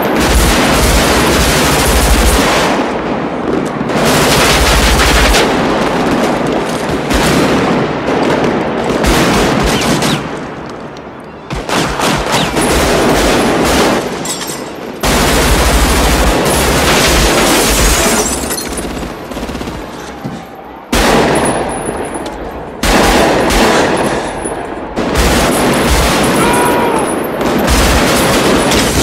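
Automatic rifle fire in long, nearly continuous bursts, broken by a few short lulls.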